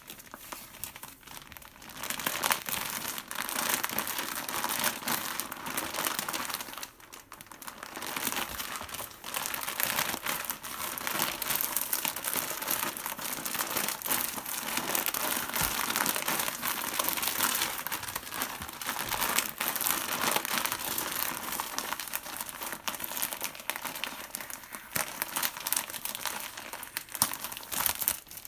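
Thin clear plastic wrapper around a long foam sponge crinkling as hands squeeze it and pull it open, with a brief lull about seven seconds in.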